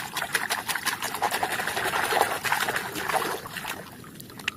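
Muddy plastic toy being washed: water trickling and splashing with quick, irregular scratchy scrubbing strokes, easing off a little under a second before the end.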